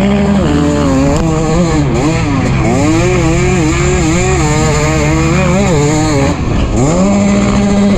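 2023 KTM 250 SX two-stroke motocross engine under hard riding, its pitch rising and falling again and again as the throttle is worked through the gears. Near the end it holds flat at the top of the revs, on the rev limiter, with wind rush underneath.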